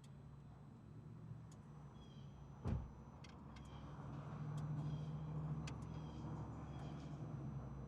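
Audi TT RS turbocharged five-cylinder engine running at low, steady revs, swelling in loudness past the middle. A single sharp thump about two and a half seconds in.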